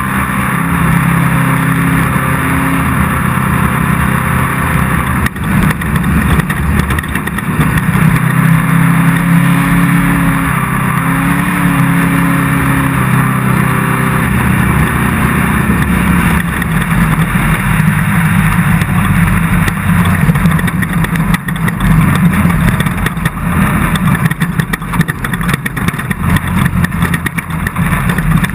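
Off-road race car's engine running hard at race pace, its pitch rising and falling as the throttle comes on and off, over a steady noisy rush.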